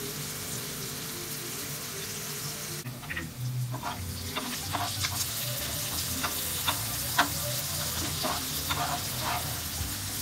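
Prawns sizzling in hot oil on a flat pan, with a spatula scraping and knocking against the pan in short strokes from about three seconds in.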